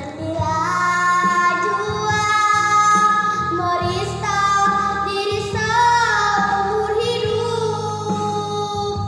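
A girl singing a solo, holding long notes with vibrato, over a steady instrumental accompaniment.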